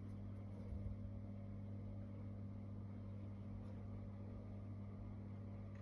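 Steady low hum with a few faint higher tones, holding unchanged, and a slight brief rise in level about a second in.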